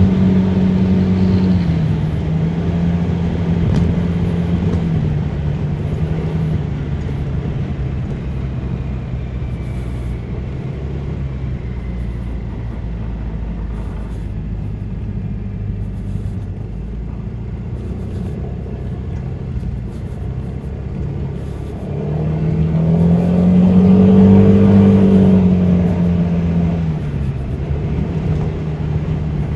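Honda Forza 300 scooter's single-cylinder engine running on the move, with road and wind noise. The engine note drops a couple of times in the first few seconds and holds steady. About 22 seconds in it rises and grows louder for a few seconds under acceleration, then settles back down.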